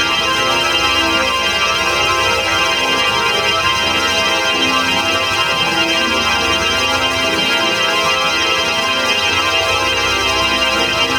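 Organ holding one dense, sustained chord of many notes at once, steady and unchanging in pitch and loudness throughout.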